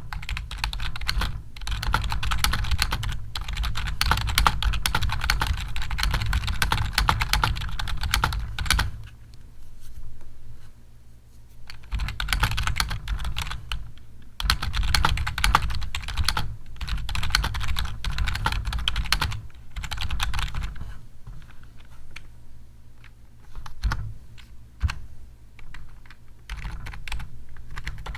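Computer keyboard typing, fast and continuous, in two long runs with a pause of about three seconds between them, then slower, scattered clicks toward the end.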